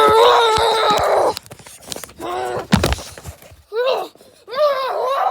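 A high voice making wordless moaning and wailing sounds: a long held call, then a shorter one, then several rising-and-falling calls, with a sharp knock just before the middle.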